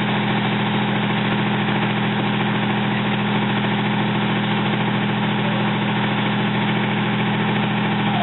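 Fire engine's motor running steadily at the scene, a constant low drone with no change in speed.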